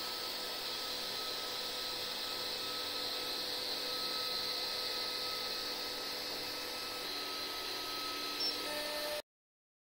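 TOYDIY 4-in-1 FDM 3D printer running a print: a steady whir of the toolhead cooling fans with a thin, held whine from the stepper motors as the toolhead and gantry move over the bed. The sound cuts off abruptly about nine seconds in.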